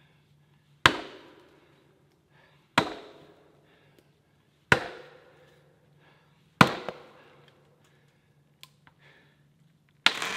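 Axe blows into the base of a leaning tree: four heavy strikes about two seconds apart, then a pause and a doubled strike near the end, each a sharp crack with a short ringing tail.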